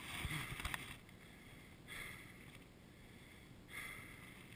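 Faint, heavy breathing of a crashed rider who has been winded, three breaths about two seconds apart.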